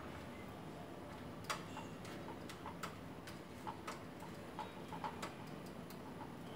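Irregular light clicks and taps from hands working the plastic water fittings at the bottom of a Panasonic instant water heater. There are about a dozen, starting about a second and a half in, and the first is the loudest.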